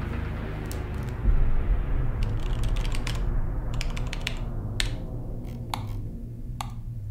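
Computer keyboard keys typed in an irregular run of clicks that thin out near the end, over a low steady drone.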